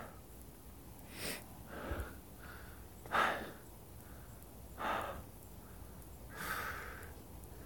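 A hiker breathing close to the microphone, a breath about every one and a half to two seconds, still winded from the climb.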